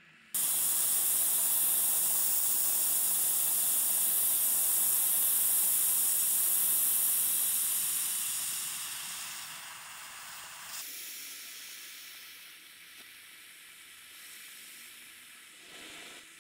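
Small oxy-propane brazing torch (H01-2) burning with a loud steady hiss of gas and flame that starts abruptly. After about eight seconds the hiss grows quieter, with a sudden drop around eleven seconds in, as the needle valve is turned down and the flame goes softer and longer.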